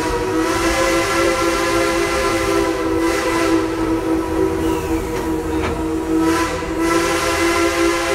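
Steam locomotive No. 190's Lunkenheimer whistle sounding one long, steady blast that starts abruptly, several pitches at once over a hiss of steam.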